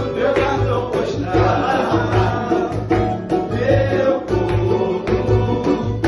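Pagode samba played live: men singing together over a banjo and an acoustic guitar, with a steady low beat underneath.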